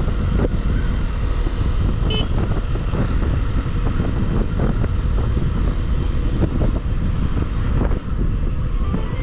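Motorcycle riding on the road: steady wind rush over the microphone with engine and tyre noise underneath. A brief high-pitched beep sounds about two seconds in.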